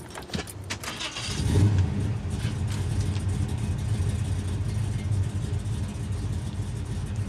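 Car engine being started: a few sharp clicks, then the engine catches about a second and a half in and runs steadily.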